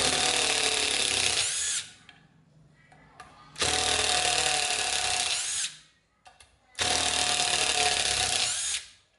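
National cordless impact driver driving a 5 cm screw into a 5 cm wooden block, run in three bursts of about two seconds each with short pauses between them.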